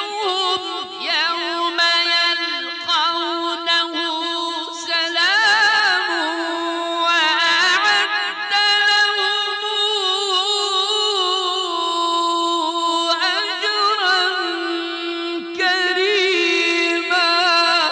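A man's voice reciting the Quran in the melodic mujawwad style: long held lines on a high pitch, ornamented with quick wavering turns and only brief breaks.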